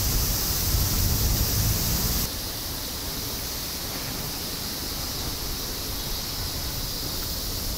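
Steady hiss of outdoor background noise, with a low rumble for the first two seconds that then drops away.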